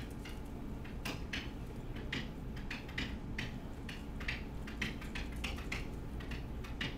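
A pen writing on an interactive whiteboard: a quick, irregular run of short scratches and taps as each letter is stroked out, over a steady low hum.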